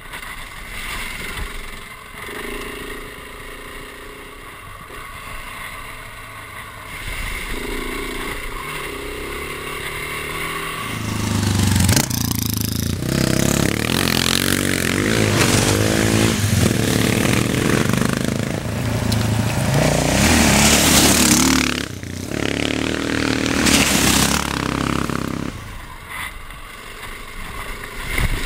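Single-cylinder off-road motorcycle running along a dirt track. About twelve seconds in it gets louder: engine revs rise and fall as bikes ride through a water crossing, with two loud rushes of splashing water.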